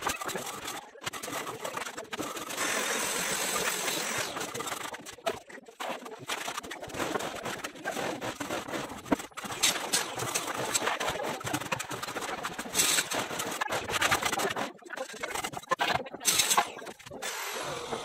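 Fast-forwarded worksite noise of hand work on cement cabinets: a jumble of rapid scraping, tapping and clatter, with a few brief hissing scrapes later on.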